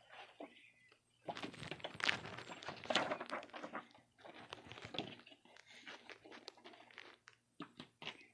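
Paper and cardboard rustling and crinkling as sheets, books and box contents are handled and laid out on a felt table, with small taps and knocks; loudest between about one and three and a half seconds in, then quieter.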